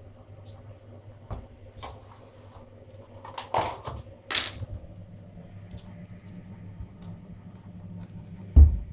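Plastic deli-cup tubs being handled and set down on a hard surface: scattered light clicks and knocks, two louder scraping rustles of plastic about three and a half and four and a half seconds in, and a loud thump near the end, over a steady low hum.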